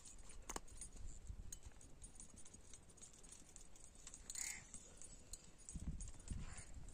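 Faint open-air ambience with a crow cawing once about four seconds in, a few small clicks, and wind rumbling on the microphone near the end.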